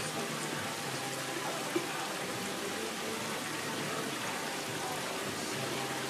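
Steady outdoor background hiss, with one short click a little under two seconds in.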